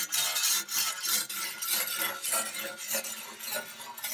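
Whetstone stroked along the edge of a peened Austrian Schröckenfux hand-scythe blade: stone scraping on steel about three times a second, growing fainter near the end. A light honing of the cutting edge with the end of the stone.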